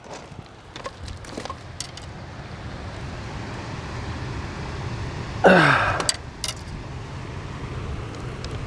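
Gloved hands working a spotted gar in a dip net: scattered clicks and rattles of the net's frame and mesh over a low steady rumble that slowly grows louder. About five and a half seconds in comes a short, loud, voice-like sound that falls steeply in pitch.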